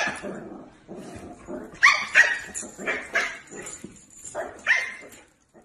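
A dog barking and yipping in a string of short calls, the loudest two close together about two seconds in.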